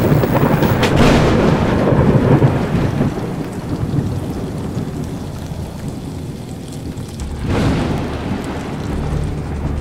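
Thunderstorm: a loud crash of thunder rumbling over steady rain, strongest in the first three seconds and then dying away, with a second roll of thunder about seven and a half seconds in.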